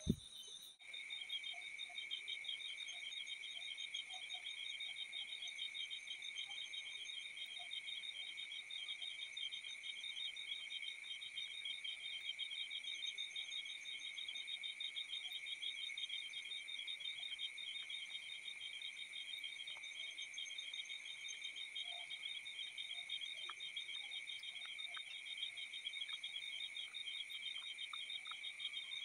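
Crickets chirping in a steady, rapid pulsing trill, with a few faint ticks in the second half.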